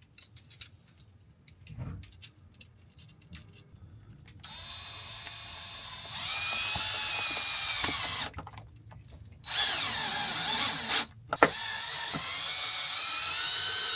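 Power drill run in three bursts starting about four seconds in, its motor pitch rising and falling as the trigger is worked, with a few faint clicks before it.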